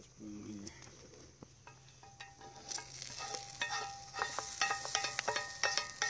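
A wooden spoon scraping bacon and onions out of a skillet into a cast-iron Dutch oven: a run of irregular scrapes and clinks, some ringing briefly off the metal. It starts about two seconds in and grows busier and louder from about three seconds on.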